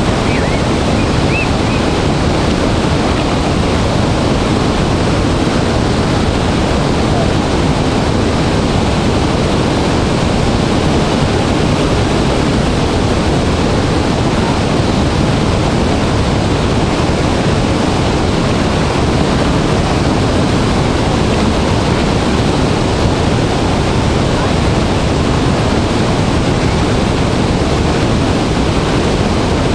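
Dray Nur Waterfall, a large waterfall in high flow, crashing with a loud, unbroken rush of falling water.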